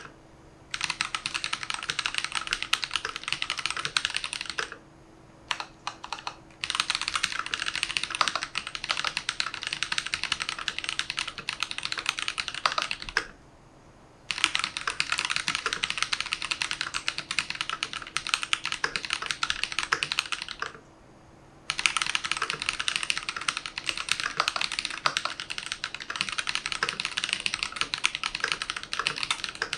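Archon FX+ mechanical keyboard with Holy Panda tactile switches being typed on fast, in long dense runs of keystrokes. The runs break off for about a second or two a few times, with only a few single key presses in one of those gaps.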